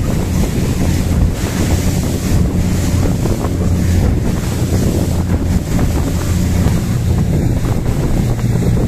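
RIB boat's engine running at a steady drone under way, with heavy wind buffeting the microphone and water rushing past the hull.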